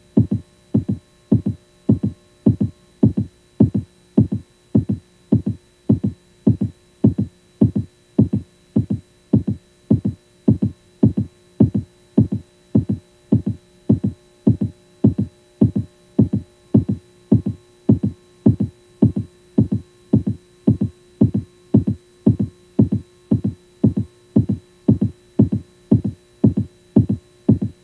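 A steady electronic pulse like a slow heartbeat, a little under two beats a second, over a low steady hum.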